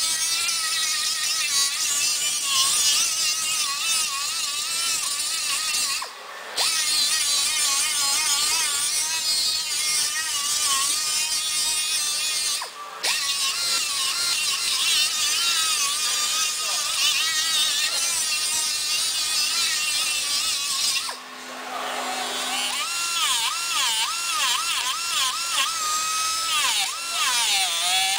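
High-speed power tool whining steadily, its pitch wavering up and down as it works against the door metal, with three brief breaks.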